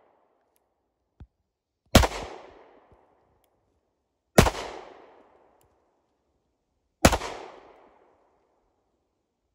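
Three single pistol shots, spaced about two and a half seconds apart, each a sharp crack followed by a decaying echo.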